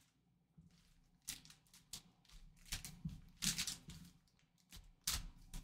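Trading-card packs in their wrappers being handled and squared into a stack on a tabletop: a few faint, irregular rustles and soft knocks, the loudest near the middle and near the end.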